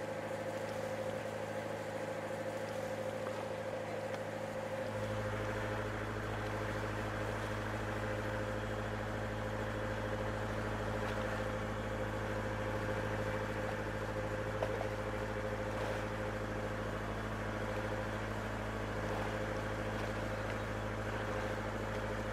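A fishing boat's engine running steadily: an even hum with a few constant tones, joined by a deeper rumble about five seconds in.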